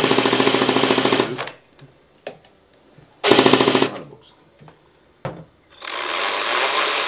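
Electric airsoft gearbox of a homemade M134 minigun replica cycling in rapid full-auto bursts: one stopping about a second in, then a short half-second burst about three seconds in. Near the end a motor whir builds up.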